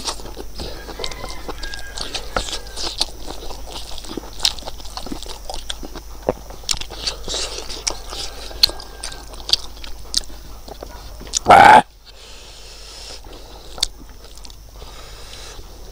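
Close-up mouth sounds of a man chewing rice and buffalo-innards curry: wet chewing, lip smacks and many small clicks. About twelve seconds in comes one brief, very loud burst, the loudest sound of all.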